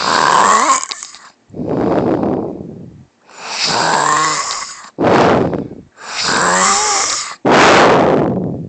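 A woman snoring loudly and oddly: about three breathing cycles, each a drawn-out snore with a wavering, warbling pitch followed by a shorter rough, rasping breath without pitch.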